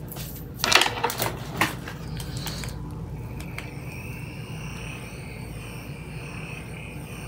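Handheld mini fan: a few clicks and knocks of handling, then from about three seconds in it runs with a steady high whine.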